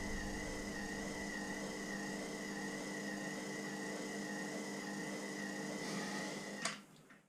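Electric motor on a milling machine running steadily with a hum and a high whine, then switched off with a click near the end.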